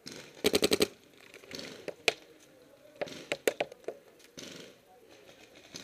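Planet Eclipse Geo2 paintball marker firing a rapid burst of about eight shots just after the start. This is followed by a few scattered sharp single pops and cracks over the next couple of seconds.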